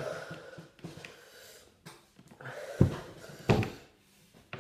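A man breathing hard through his mouth against the burn of a ghost pepper (Bhut Jolokia), with two loud, forceful exhalations close together a little past the middle.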